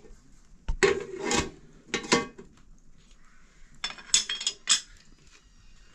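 Metal cooking pots, lids and kettles clanking on a wood-fired hearth as a lid is set on a pot. The clanks come in three clusters, with brief metallic ringing.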